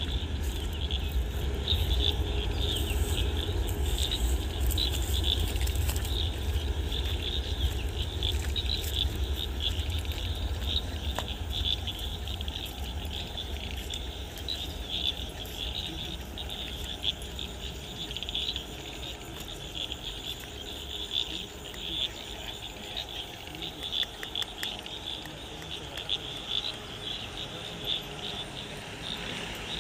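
An airliner's jet engines rumble at take-off power, the deep roar fading steadily as it rolls and climbs away. Over it, a steady chorus of frogs and insects keeps calling.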